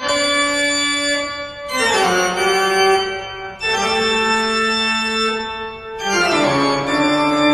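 Organ music: loud held chords, changing about every two seconds, with quick descending runs of notes leading into the new chords.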